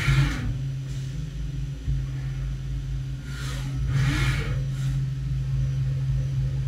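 Haas UMC-750 five-axis CNC mill running between cuts: a steady low machine hum, with two short whirring surges, one at the start and one about four seconds in, as the trunnion table tilts and rotates and the spindle head repositions for a 3+2 indexed operation.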